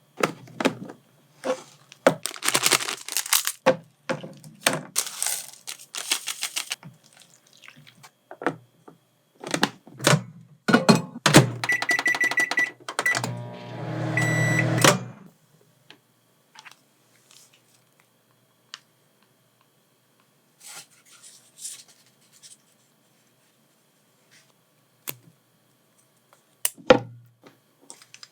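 Kitchen handling sounds for instant jjajang noodles made in a microwave oven: plastic packaging crinkling and clicks and knocks. Near the middle a microwave's keypad beeps several times, and the oven hums for a couple of seconds before stopping with a beep. A single sharp knock comes near the end.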